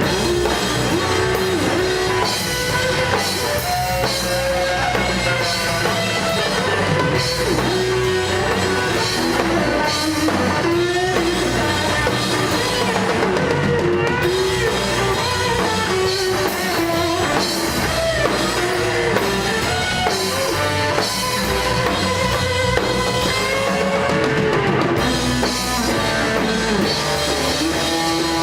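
Rock band playing live: fuzz-toned electric guitar, bass and drum kit in a steady, loud instrumental passage with a wandering guitar melody line.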